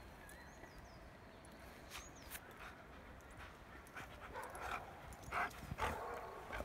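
A white shepherd dog bounding through deep snow toward the microphone, with crunching snow and huffs of breath that grow louder over the last two seconds as it comes close. Faint small-bird chirps in the first couple of seconds.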